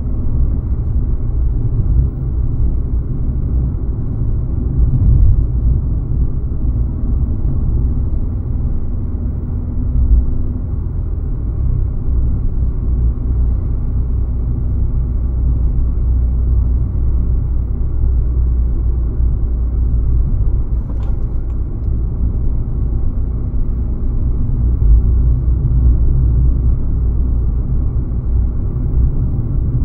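A car driving at a steady pace: a continuous low rumble of road and engine noise, with a faint click about two-thirds of the way through.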